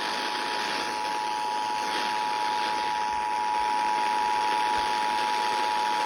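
Emergency Alert System attention signal received over FM radio: a steady two-note electronic tone held without a break over a background hiss, announcing a Child Abduction Emergency (Amber Alert).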